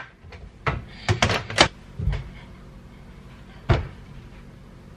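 Knocks and clunks of kitchen things being set out on the counter: a plastic cutting board, a chef's knife and a whole melon. A quick run of knocks comes in the first two seconds, then one more sharp knock later on.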